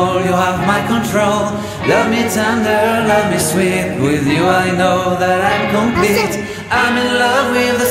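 Background pop song with a sung vocal melody over steady accompaniment.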